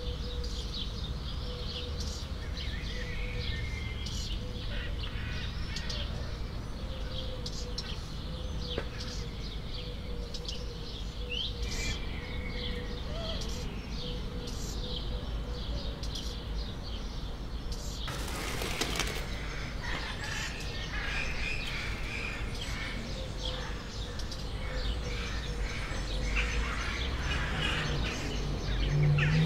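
Birds chirping intermittently in a steady background ambience with a faint constant tone, and a brief rush of noise about two thirds of the way through.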